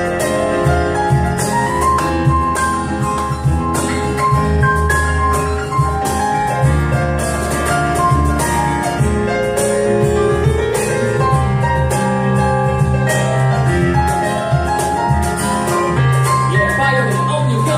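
Band playing an instrumental section: a piano solo over bass and drums, introduced by a call of the pianist's name just before.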